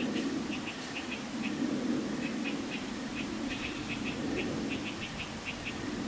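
Unidentified small animal calling: quick, high chirps in irregular clusters, several a second, over a low rushing of breeze that swells and fades.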